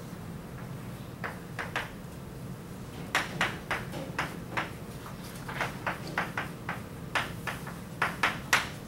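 Chalk tapping and scratching on a chalkboard as an equation is written: a few separate taps, then quick runs of sharp clicks with short pauses, the loudest near the end. A steady low hum runs underneath.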